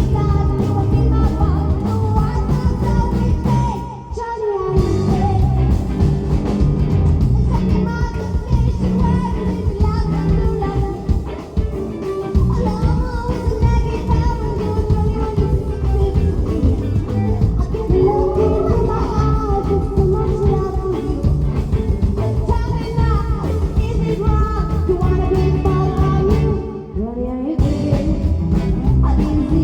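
Live rock and roll band playing with a singer, guitar and a steady bass and drum beat; the band briefly drops out about four seconds in and again near the end.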